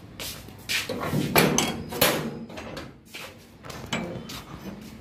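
Steel house gate being opened and shut, with its metal panels and latch clanking and rattling loudest about one to two seconds in, amid footsteps on paving.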